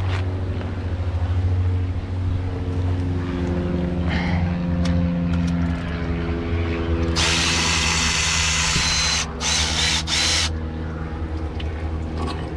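Power tool, such as a drill or ratchet, running in bursts as it backs out a water pump bolt. Under it is a steady low hum, and for about three seconds in the second half a loud hissing whir with short breaks.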